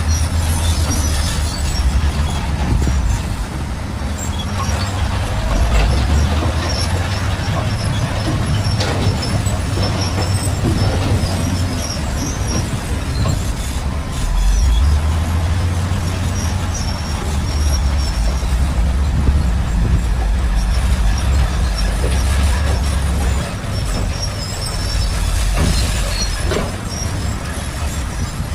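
Shantui bulldozer's diesel engine working under load, a deep steady rumble that swells and eases several times, with short high squeaks running through it.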